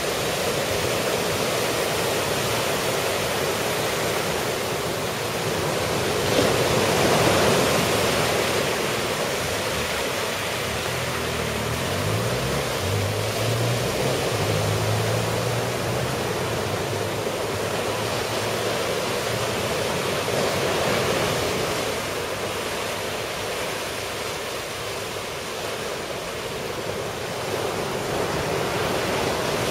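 Ocean surf from a typhoon swell breaking and washing ashore: a continuous rush that swells louder about seven seconds in and again later, with wind on the microphone.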